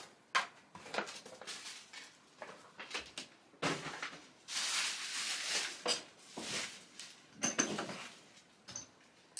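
Cardboard product boxes being handled and thrown into bags: irregular light knocks and clatter with paper and plastic bags rustling, including a longer rustle about halfway through.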